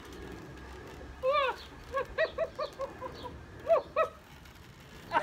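A person laughing while pinned under a big dog: a long rising-and-falling cry about a second in, then a quick run of short pitched "ha" notes at about five a second, and two more just before the end.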